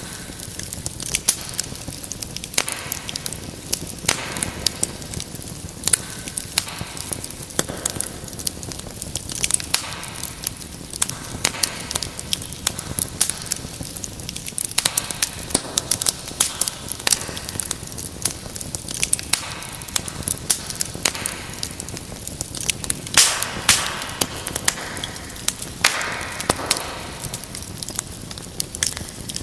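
Wood fire crackling and popping steadily over a soft hiss of burning, with a cluster of louder pops about three-quarters of the way through.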